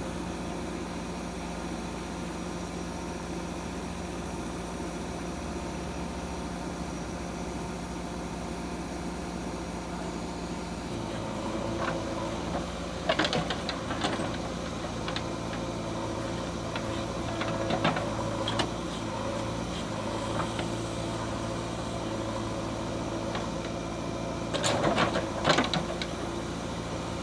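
Backhoe loader's diesel engine running steadily, its note shifting to a heavier tone about eleven seconds in, with a few sharp clanks near the middle and a short cluster of knocks near the end.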